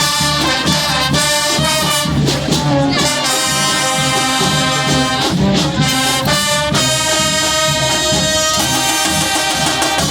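Brass street band playing a Latin-style tune, the horns holding long chords over a steady beat.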